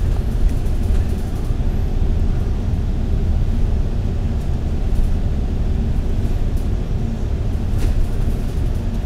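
Steady low rumble of engine and road noise inside a MAN A95 double-decker bus cruising along a highway.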